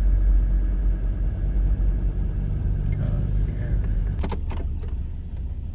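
Ford Everest SUV towing a caravan, a steady low engine and road rumble while driving. A few sharp clicks or rattles come about four seconds in.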